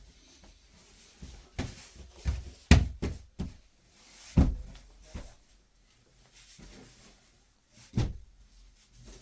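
A run of irregular knocks and thuds, about eight in all, bunched together in the first half and one more near the end.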